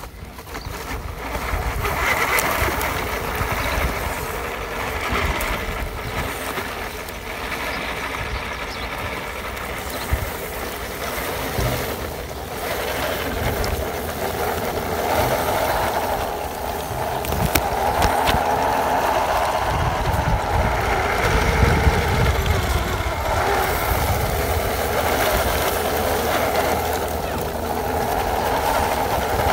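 Electric motor and gears of a ZP1001 radio-controlled crawler truck whining as it drives under load, towing a loaded trailer. The whine wavers with the throttle and gets louder about halfway through.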